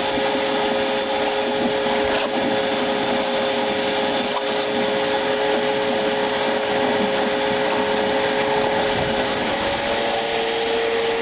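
A 6.5 horsepower Shop-Vac wet/dry vacuum running hard as it sucks water up through its hose: a loud, steady rushing roar with a motor whine. Near the end the whine steps up in pitch.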